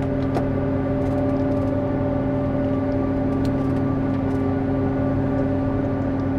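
John Deere 8800i self-propelled forage harvester running steadily, a constant machine drone with a strong even hum, heard from inside its cab.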